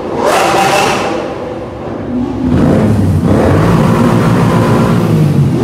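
Engines revving in a rev-off between a Lamborghini and a Suzuki M109R cruiser with a REVO cannon exhaust. A quick rev climbs and holds in the first second, then eases off. From about two and a half seconds in, a lower, heavier rev is held loud.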